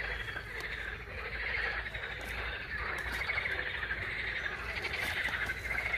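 A chorus of frogs croaking: a steady, fast-pulsing trill that goes on without a break.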